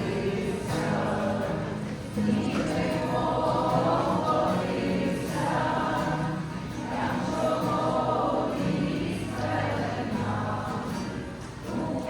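A choir singing, in sung phrases of a second or two each with short breaks between them.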